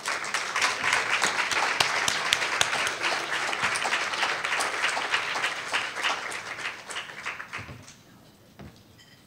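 Audience applauding, a dense patter of many hands that dies away near the end.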